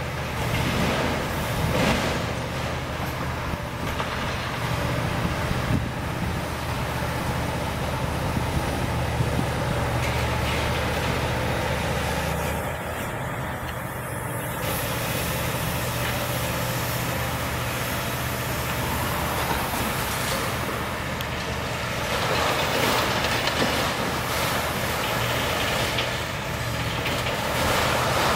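Liebherr 974 demolition excavator's diesel engine running steadily under load. Spells of crashing and clattering debris come about two seconds in, again around twenty to twenty-three seconds, and near the end as the grab works the building.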